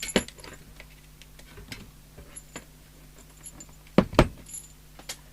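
Small clicks and light knocks of a CB radio being handled and disconnected during disassembly, with two sharp knocks close together about four seconds in. A faint steady hum sits underneath.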